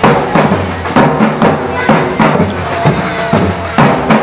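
Samba-reggae drum band playing a loud, driving rhythm on big bass drums and snares, with heavy accented strikes about once a second.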